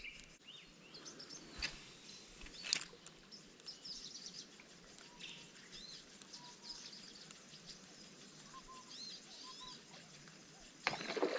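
Faint bush ambience of small birds chirping and calling in short, scattered notes. Two sharp clicks come about one and a half and nearly three seconds in, and a short noisy burst comes near the end.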